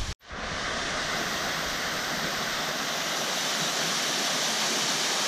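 Waterfall of thin streams pouring down a rock wall into a shallow pool: a steady rush of falling water, cutting in after a momentary gap at the start.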